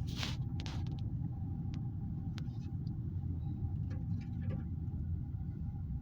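Steady low rumble of a vehicle on the move, with a faint steady hum and a few brief clicks and rattles.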